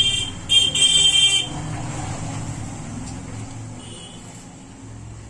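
A loud, steady high-pitched buzzing tone like an alarm or horn, with a brief break, cuts off about a second and a half in. A low hum and hiss then fade away steadily.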